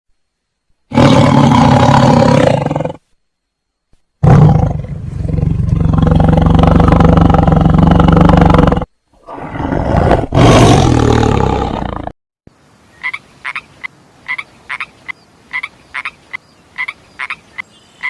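Animal calls: three long, loud, rough calls with short silences between them, then a quicker run of short pitched calls repeating two or three times a second.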